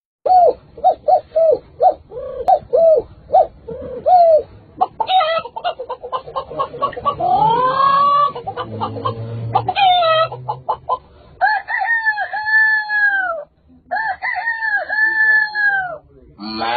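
A man imitating a chicken and a rooster with his voice. First comes a run of short clucks, about three a second, then a jumble of squawks, then two long rooster crows, each about two seconds, near the end.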